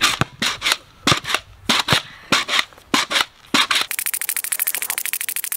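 Pogo stick bouncing on a concrete court, a sharp clack at each bounce, about three a second. Near the end the clacks give way to a much faster, even run of clicks.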